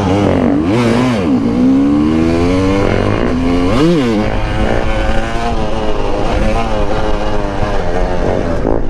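Two-stroke 250 dirt bike on supermoto wheels running after a restart from a stall, revved up and down several times so its pitch rises and falls repeatedly.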